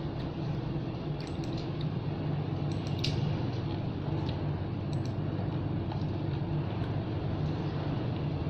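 Steady low mechanical hum, like an engine or machine running, with a few faint light clicks over it.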